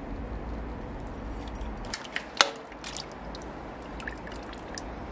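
Liquid dripping and trickling in a pot of lamb broth, with small ticks and one sharp metallic clink that rings briefly about two and a half seconds in.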